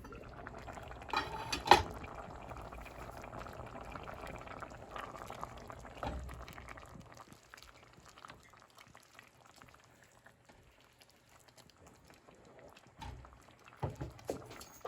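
A pot of lentil curry simmering and bubbling on the stove, with two sharp knocks, like a spoon against the pot, about a second and a half in. The bubbling thins out after about seven seconds, with a few soft knocks near the end.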